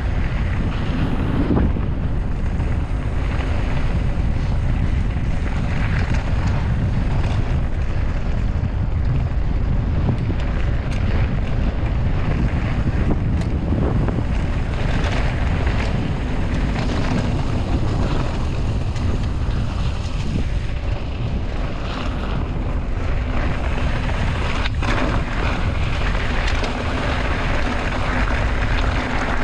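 Wind buffeting the microphone of a camera riding on a moving mountain bike: a steady, loud, low rush over the rumble of the ride. There is one sharp knock about 25 seconds in.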